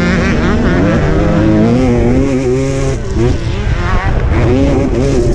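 A motocross bike engine revving hard under the rider. Its pitch climbs and falls with throttle and gear changes, drops off briefly about three seconds in, then climbs again.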